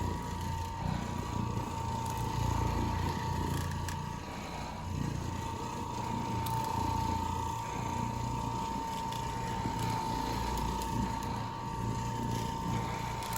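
Carpet-cleaning machine running steadily: a constant whine over a low rumble.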